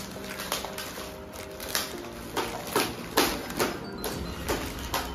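Gift wrapping paper and plastic packaging crinkling and tearing as a present is unwrapped, in a series of sharp crackles that come thicker and louder from about halfway through. Soft background music plays underneath.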